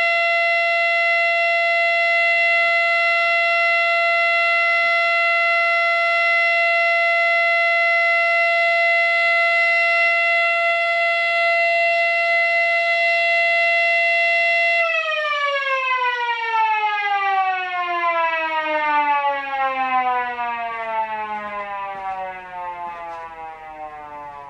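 Mini 3D-printed Fedelcode Model 7 replica siren holding a steady, loud tone at the end of a full three-minute alert. About 15 seconds in it is switched off and winds down, its pitch falling steadily and its sound fading as the rotor slows.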